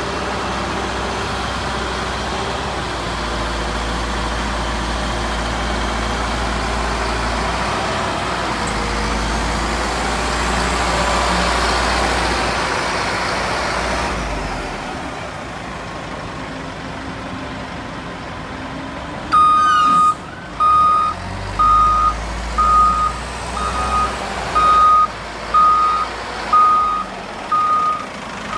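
Caterpillar 950E wheel loader's diesel engine running as the machine drives and works, louder around the middle, then easing off. About twenty seconds in, its reversing alarm starts, one steady-pitched beep about once a second, louder than the engine.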